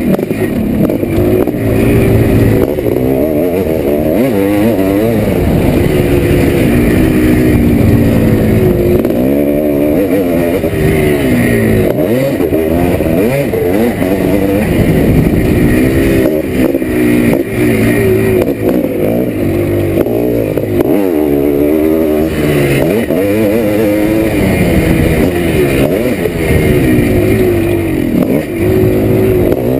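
1987 Yamaha YZ490's single-cylinder two-stroke engine being ridden hard, its revs rising and falling over and over as the throttle is opened and shut, heard close up from on the bike.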